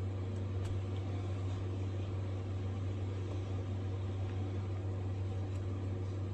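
Steady low mechanical hum in the room, with a few faint scrapes of a Mora knife shaving the end of a small wooden axe handle.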